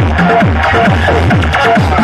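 Loud electronic dance music played through a large outdoor DJ speaker stack, driven by a steady beat of deep bass kicks that each drop sharply in pitch, about two and a half a second, with synth lines above.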